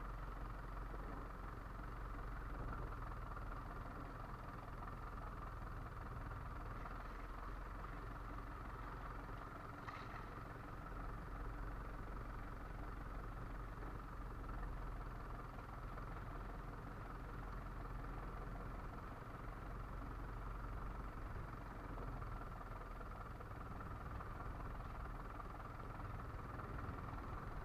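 Fishing boat's engine running steadily, with one short click about ten seconds in.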